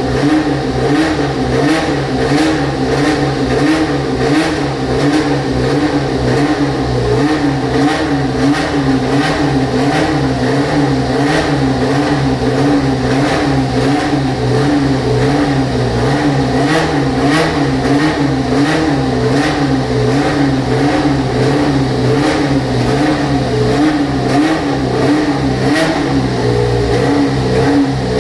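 Tyrrell Formula 1 car's racing engine running steadily at a fast idle, its pitch rising and falling slightly about twice a second, with sharp pops scattered through it.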